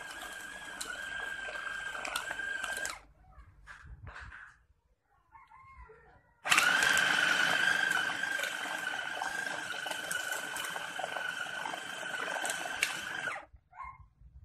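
Electric food chopper motor running with a steady high whine while its blades grind chicken into meatball paste. It stops about three seconds in, starts again about three seconds later, and runs for about seven seconds before cutting off.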